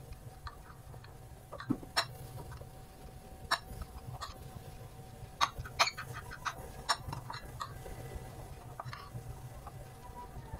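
Metal spoon clinking and scraping against a ceramic plate while mixing grated carrot and chopped onion, in irregular sharp clicks with a faint steady low hum underneath.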